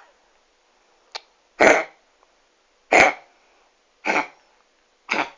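A dog coughing with kennel cough: four harsh coughs about a second apart, after a short fainter one about a second in.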